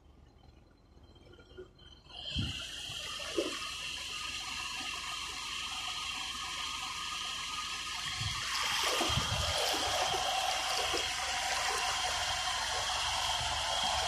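Floodwater rushing and sloshing, a dense hiss that starts suddenly about two seconds in and grows louder past the middle, with a few low thumps.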